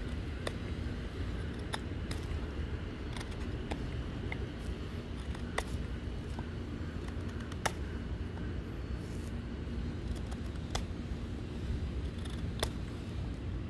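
Scattered sharp clicks and light snips from a pocket knife being handled and worked, over a steady low rumble.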